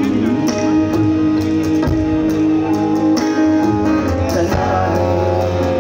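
Live band playing an instrumental passage with no singing: guitars over a drum kit, heard amplified through a concert PA.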